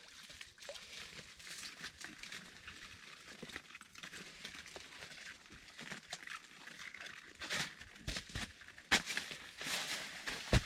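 Rustling and crinkling handling noise with scattered small clicks, and a few louder scrapes near the end.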